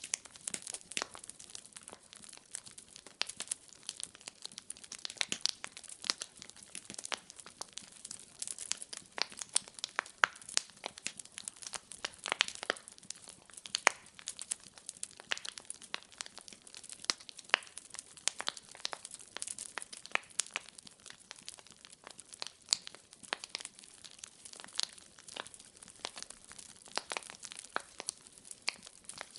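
Wood fire crackling in a fireplace: a steady run of irregular sharp pops and snaps over a faint hiss.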